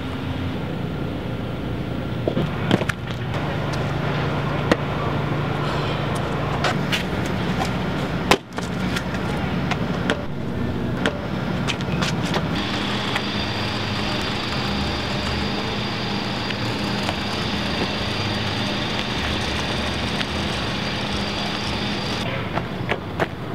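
Steady mechanical drone of running engines, with scattered light clicks; the hum changes pitch and texture about eight and twelve seconds in, where a thin high whine joins it until near the end.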